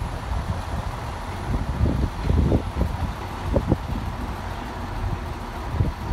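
Diesel multiple unit running as it pulls away along the tracks and fades slightly, with irregular low thumps of wind on the microphone.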